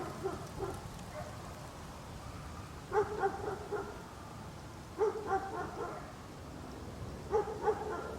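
Small dog barking in quick clusters of three or four short barks, one cluster every two to three seconds, over a faint steady background hiss.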